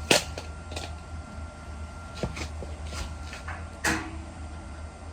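A few sharp knocks and clanks as steel bed-frame parts are handled, the loudest right at the start and another cluster a little before four seconds in, over a steady low hum.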